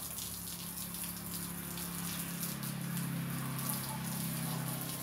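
Water spraying from a garden hose onto a wire-mesh rack and a concrete floor: a steady splashing hiss. A low hum runs underneath and grows stronger about halfway through.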